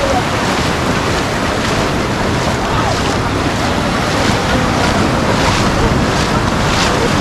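Sea surf breaking and washing in, with wind noise on the microphone.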